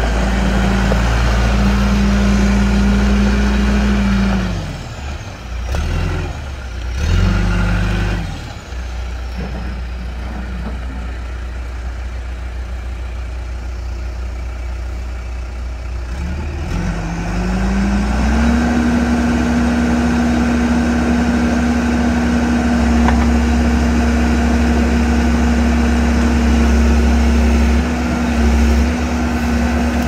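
John Deere 310SG backhoe loader's diesel engine running. It drops from high revs about four seconds in, rises and falls twice, and settles to a low idle. Past halfway it revs up again and holds steady at the higher speed while the hydraulics lower a rear stabilizer leg.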